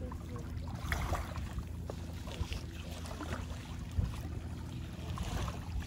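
Steady low hum of a boat or jet ski engine idling, with a single brief knock about four seconds in.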